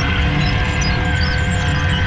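Steady hum and whine of a 1/8-scale 385CF RC hydraulic excavator's pump running, with a few constant tones over a low rumble.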